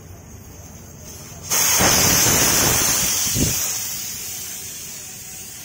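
Air hissing out through the valve of a Honda Activa's tubeless scooter tyre as it is deflated. The hiss starts suddenly about a second and a half in and slowly fades as the pressure drops.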